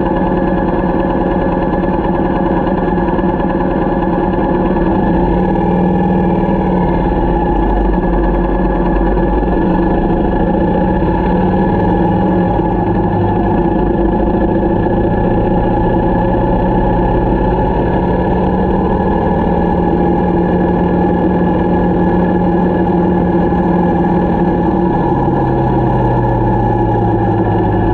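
Motorcycle engine running steadily while riding over low wind rumble. The engine note shifts to a new pitch a few times as speed changes.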